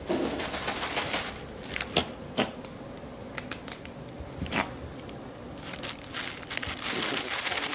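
Crinkling and rustling of pads and bedding as small puppies move about on them, with a few sharp clicks and a denser rustle near the end.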